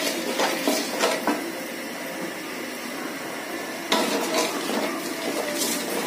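Wooden spoon stirring and scraping a ghee, nut and cardamom mixture in a metal cooking pot, knocking against the pot's sides: a run of knocks in the first second or so, a quieter stretch, then more from about four seconds in.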